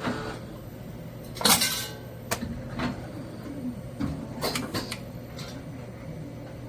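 CNC automatic spring-making machine running, a steady hum under irregular sharp metallic clinks and clatter, the loudest a short clattering burst about a second and a half in.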